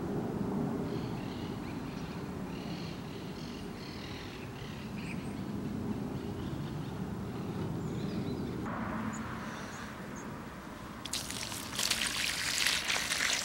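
Low rumbling outdoor ambience with faint bird chirps. Near the end a loud rushing hiss of water comes in and lasts to the end.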